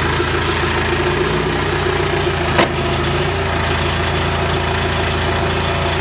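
John Deere 410E backhoe's diesel engine running steadily at idle. A single sharp clack sounds over it about two and a half seconds in.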